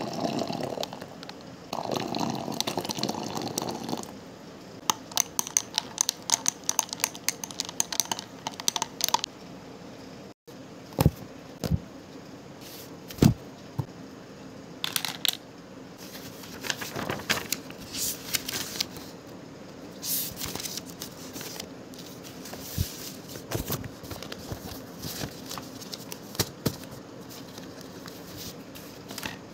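Milk poured into a glass of coffee for the first few seconds, then a run of quick light clicks. After a short break, paper rustles and slides as handwritten study notes are handled and marked with a highlighter.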